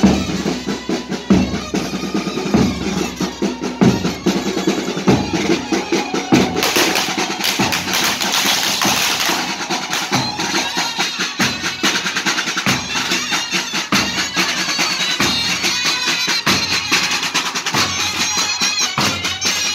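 A marching band's bass drums and side drums beat a steady rhythm, with a deep stroke about every second and a quarter and quicker strokes between. From about halfway, horns join in with a melody over the drums.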